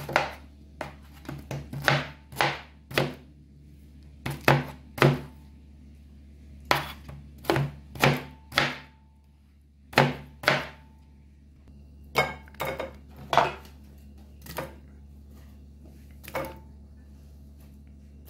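Kitchen knife dicing fresh pineapple into cubes on a plastic cutting board: irregular sharp chops of the blade hitting the board, some in quick runs and others spaced out with short pauses.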